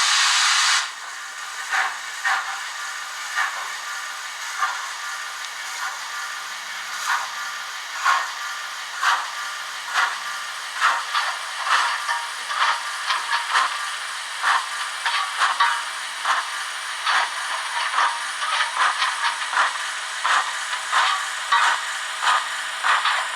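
DCC sound decoder in an Ixion J class model steam locomotive: a loud steam hiss that cuts off about a second in, then exhaust chuffs that start slowly and steadily quicken as the engine gets under way.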